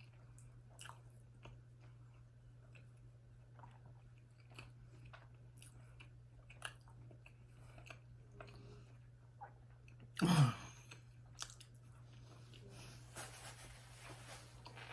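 Close-miked, quiet chewing of soft bread dipped in hummus, with many small wet mouth clicks. About ten seconds in there is one brief, louder vocal sound.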